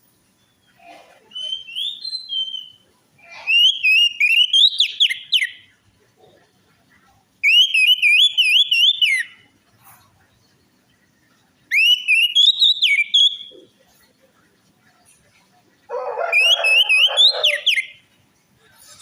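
Orange-headed thrush song: five short, whistled, warbling phrases with pauses of one to two seconds between them. This is the kind of lure song played to coax a caged anis merah into singing.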